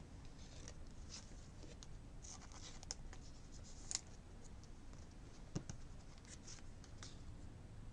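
Baseball trading cards handled and slid against one another as a pack is flipped through: faint scratchy rustles with a few soft clicks.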